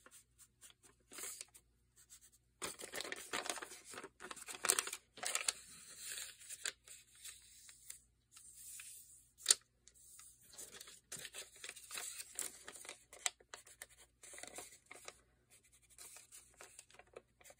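Paper being handled: a grid-paper strip folded, creased and rubbed with a wooden-handled ink tool, giving short bursts of crinkling and scraping rustles. One sharp tap about nine and a half seconds in.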